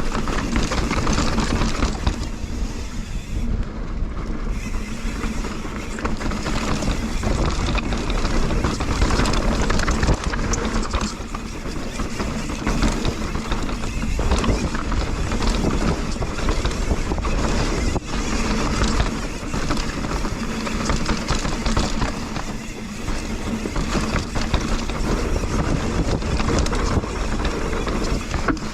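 Mountain bike being ridden on a dirt trail: wind rushing over the camera microphone with a heavy low rumble, over tyre noise and frequent small rattles and knocks from the bike.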